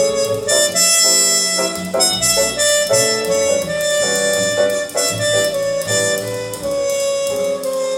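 Recorded music played back over a high-end hi-fi system of Audio Tekne electronics and Natural Sound loudspeakers. A lead instrument holds long sustained notes over a plucked and bass accompaniment.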